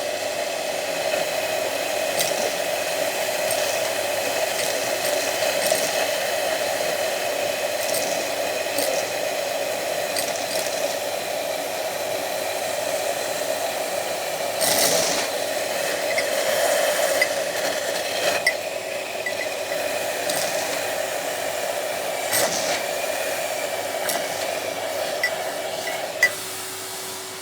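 Vacuum cleaner running steadily while hard custard apple seeds click and rattle as they are sucked up the wand. Its main running noise cuts off sharply near the end.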